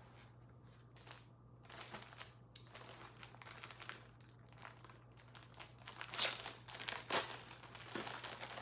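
Packaging crinkling and rustling as a garment is pulled out and unwrapped, in a quick run of crackles that gets louder after about six seconds.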